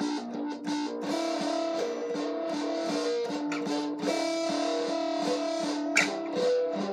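Guitar being played solo: picked and strummed chords with the notes left ringing, and one sharp percussive hit about six seconds in.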